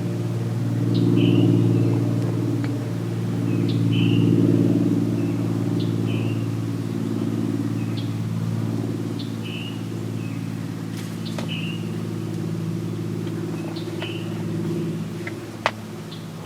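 A steady low motor drone, like a distant vehicle, swelling twice in the first five seconds, while a small bird repeats a short high chirp about every second and a half. A single sharp click comes near the end.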